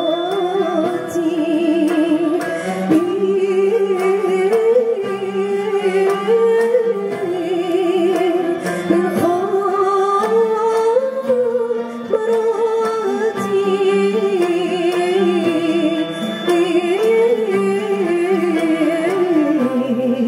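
A woman singing a melody with heavy vibrato through a microphone, accompanied by a plucked-string and bowed ensemble of ouds, mandolins, classical guitars, violins and cellos.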